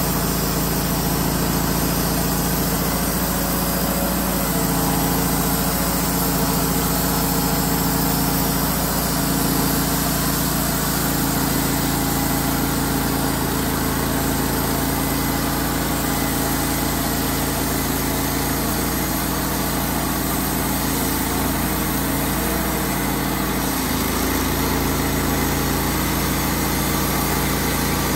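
Wood-Mizer LT15 band sawmill's engine running steadily as its band blade cuts lengthwise through a pine log. The engine's low note shifts about 24 seconds in.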